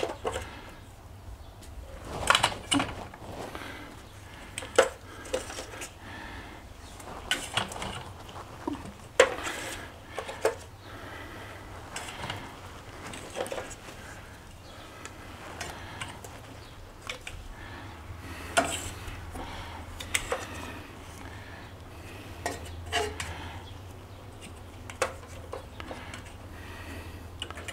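Irregular light clinks and clicks of brass pipe fittings being handled while blue thread-sealing tape is wrapped onto their threads, some seconds apart, over a steady low hum.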